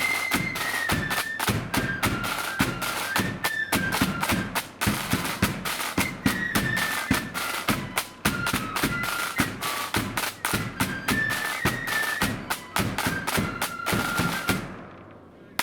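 Marching flute band playing a tune: a shrill flute melody over dense, heavy snare and bass drum beats, stopping abruptly near the end.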